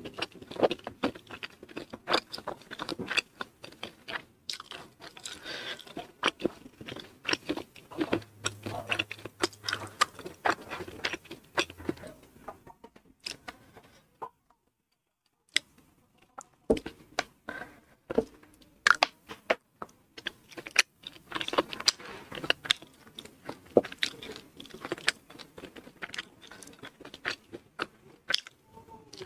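Close-miked chewing and crunching of a mouthful of rice with crisp fried anchovies, dense irregular crackles and wet mouth clicks. The sound cuts out completely for about a second and a half near the middle.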